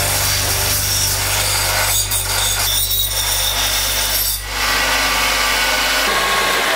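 Belt grinder running with its motor humming while a metal part is ground against the belt, a steady rasping hiss that eases briefly about four seconds in.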